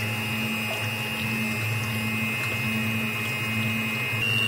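Fortex electric hand mixer running, its twin beaters whipping heavy cream in a glass bowl: a steady motor whine over a low hum. The whine steps up a little in pitch about four seconds in.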